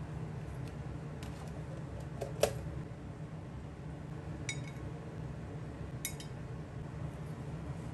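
A metal spoon and utensils clinking and knocking against a ceramic plate a handful of times. The loudest knock comes about two and a half seconds in, and two short ringing clinks follow later. A steady low hum runs underneath.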